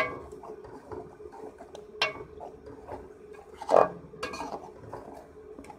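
Metal spoon stirring chicken in wet masala in a metal karahi, knocking and scraping against the pot with several sharp clinks. The loudest clink comes a little under four seconds in.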